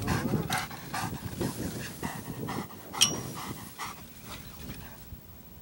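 Black retriever dog panting, about two breaths a second, fading out near the end, with one sharp click about three seconds in.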